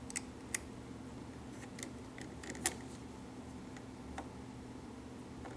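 A few faint, sharp clicks of a small bolt and nut being fitted by hand to steel angle brackets, over a steady low hum.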